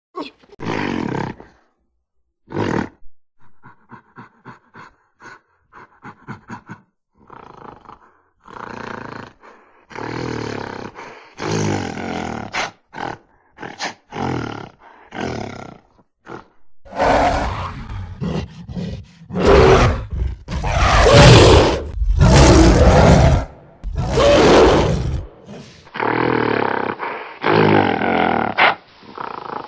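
Gorilla roar and grunt sound effects. A few short calls and a quick run of short grunting pulses come first, then longer calls. The loudest roars follow from about 17 to 25 seconds in, and steady calls go on near the end.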